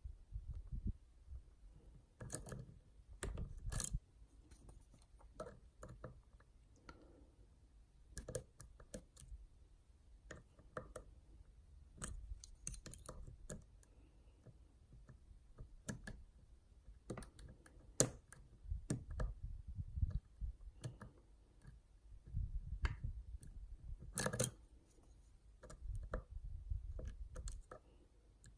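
Lock pick and tension wrench working inside a Yale Superior pin-and-slider lock: irregular light clicks and scrapes as the pick lifts pins, with occasional sharper clicks of pins setting, over faint handling rumble.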